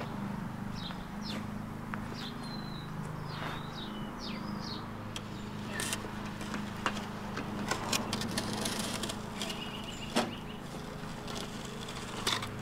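A steel shovel scraping and chopping into loose dirt and stony fill, in a string of sharp scrapes and clicks from about six seconds in. Birds chirp in the first few seconds, over a steady low hum.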